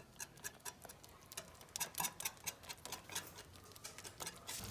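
Garlic butter cream sauce with Parmesan bubbling in a pan: faint, irregular small pops and ticks, several a second.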